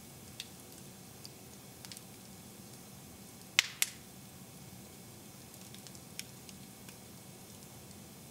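Wood fire crackling in a fireplace: scattered small snaps, then two loud pops close together about three and a half seconds in.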